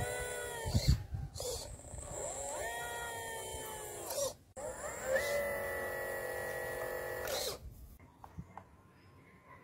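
Model hydraulic excavator's pump motor whining in three bursts while the arm and bucket work the sand. Each burst rises in pitch as it starts, holds steady, then drops away. Two low thumps come in the first second, and the whine stops near the end, leaving only faint clicks.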